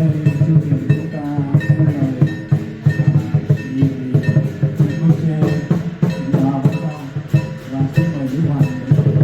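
Music with a quick steady beat and a wandering melody line.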